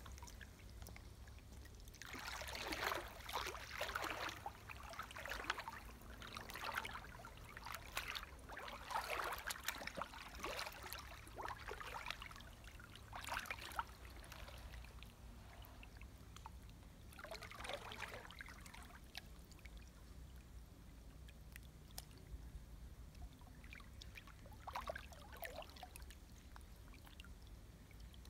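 Creek water splashing and sloshing as a person lowers himself to sit in the shallow stream and shifts his legs about, in irregular bursts that are busiest in the first half, with a few shorter splashes later. A low steady rumble lies underneath.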